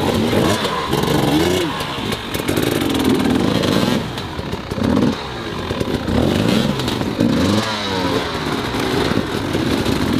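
Several enduro dirt bikes, among them a Husqvarna 300 two-stroke, revving hard and repeatedly, the engine pitch rising and falling about once a second as the bikes are held in mud and rocks on an obstacle climb.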